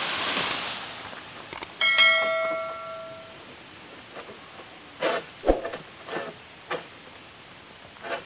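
Metal pole of an egrek palm-harvesting sickle clanging about two seconds in, a sharp strike that rings on in several clear tones and fades over about a second, as the sickle is worked in the crown of an oil palm. A rustling rush comes at the start and a few short knocks around five seconds in.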